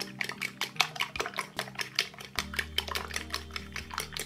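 Metal fork beating egg and sugar in a ceramic bowl: quick, steady clicking of the tines against the bowl, about five or six strokes a second.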